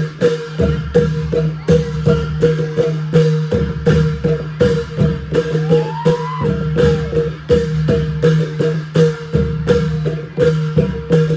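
Thai klong yao long-drum ensemble playing an old-style rhythm: a steady, even run of drum strokes over a sustained low ringing tone.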